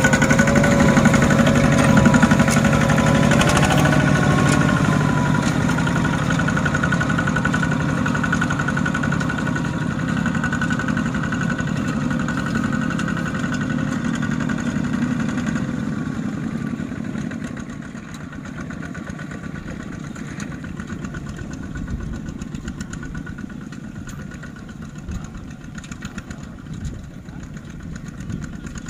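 Kubota two-wheel walking tractor's single-cylinder diesel engine running steadily as it pulls a trailer, with a slight rise and fall in pitch in the first few seconds; it grows fainter from a little past halfway as the tractor moves away.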